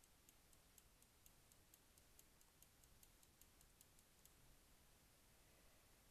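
A rapid run of faint, sharp clicks, about four to five a second and speeding up slightly, which stops about four seconds in, leaving near silence.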